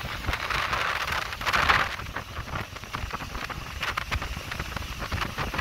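Wind buffeting the microphone and water rushing past a moving motorboat: a steady, noisy rush with crackles and a low rumble, swelling briefly between one and two seconds in.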